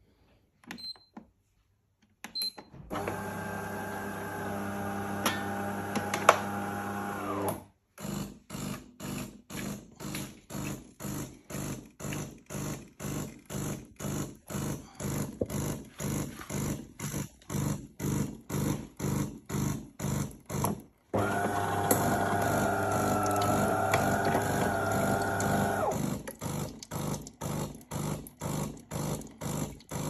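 De'Longhi bean-to-cup coffee machine running a cycle: after a few faint clicks, a steady motor hum for about five seconds, then the pump pulsing about twice a second as hot water runs from both spouts, another steady hum stretch about two-thirds of the way in, then pulsing again.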